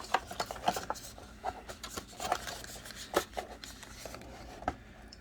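A small product box and its packaging being handled as it is opened and the contents are lifted out: irregular rustling and scraping with several sharp taps and clicks.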